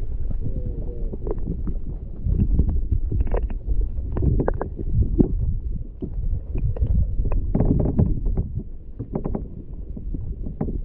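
Water rushing and sloshing heard from underwater beside a sailing kayak's hull, a muffled deep rumble dotted with irregular knocks and clicks.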